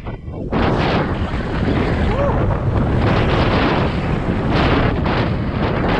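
Wind buffeting the microphone of a camera on a moving mountain bike: a loud, steady rushing rumble, with a brief faint squeak about two seconds in.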